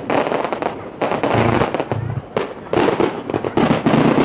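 Aerial firework shells bursting in quick succession: several loud bangs, with crackling between them.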